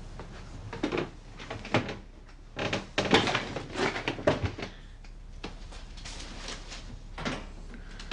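Irregular knocks and clatters, with a thick cluster of them in the middle of the stretch and scattered single ones before and after.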